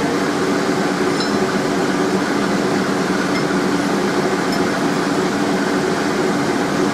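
Steady humming drone of a mechanical fan, with a couple of faint clinks of the steel door-knocker parts being fitted together by hand.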